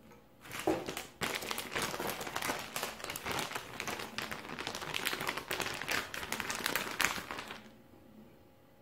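Plastic packaging bag crinkling and rustling as it is handled, with many small sharp crackles. It starts about half a second in and stops near the end.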